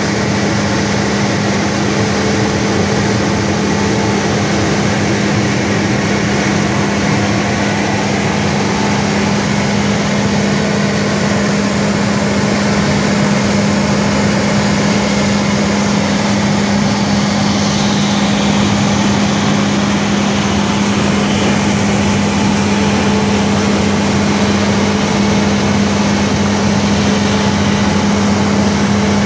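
Engine running steadily: a constant low hum with a loud, even whirring noise over it, unchanging throughout.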